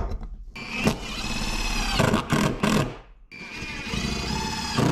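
Cordless drill driving screws through aluminium bars into plywood, in two runs of about two seconds each with a steady motor whine and a short pause between.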